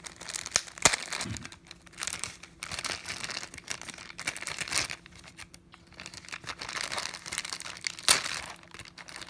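Packaging being handled: crinkling and rustling as the headphones' carry pouch is opened and its contents pulled out, with sharp clicks, the loudest about a second in and another near the end.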